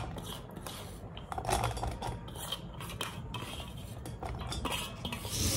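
Chopped onions being pushed off a stainless steel plate into a steel pot: a series of light clinks and scrapes as the plate knocks and rubs against the pot rim, with the pieces dropping in.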